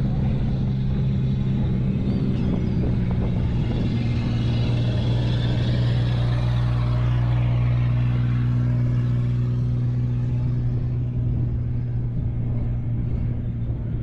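A motor engine droning steadily at one low pitch, with surf hissing over it that swells and fades around the middle.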